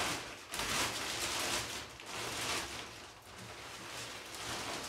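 Clear plastic wrapping crinkling and rustling as it is pulled off a fabric racing seat, in uneven surges that ease off in the second half.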